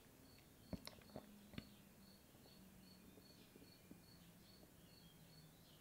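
Near silence: faint high chirping, about two or three short chirps a second, under a low room hum, with a few soft clicks in the first two seconds.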